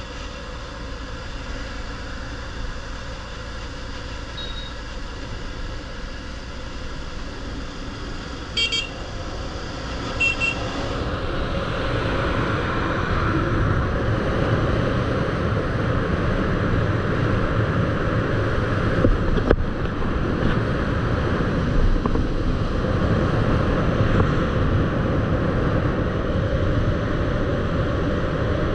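A road vehicle running with steady engine and rushing wind noise. Two short horn beeps come about nine and ten seconds in, and the noise grows louder from about eleven seconds as the vehicle speeds up.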